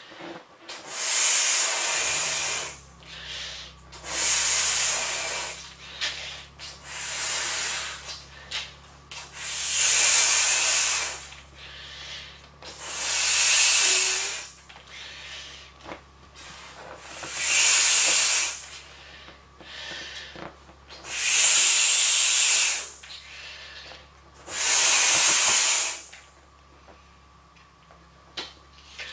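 Person blowing up a large vinyl beach ball by mouth: about eight long, hissing breaths, each a second or two, a few seconds apart, as air is forced through the ball's valve and drawn back in between blows.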